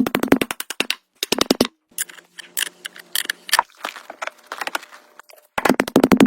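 Rapid mechanical rattling in short bursts of many quick impacts, three bursts in all, with scattered knocks and scraping between them.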